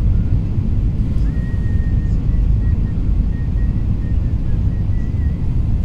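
Steady low rumble of jet engines and rushing air inside the cabin of an Airbus A320-family airliner on its landing approach. A faint high thin tone comes in about a second in and wavers slightly until near the end.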